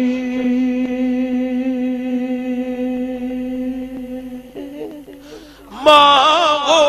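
A man singing a Punjabi Sufi verse into a microphone. He holds one long steady note for about four seconds, then sings a few short notes, drops away briefly, and comes back in loud with a wavering, ornamented line near the end.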